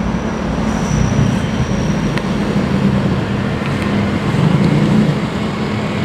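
Steady low rumble of running vehicle engines and street traffic, with a couple of faint clicks.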